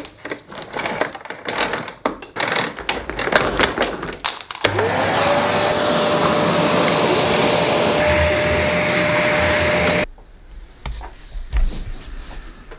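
A run of knocks and clatter, then about five seconds in a canister vacuum cleaner starts up. Its motor whine rises quickly to a steady pitch and it runs for about five seconds before cutting off suddenly.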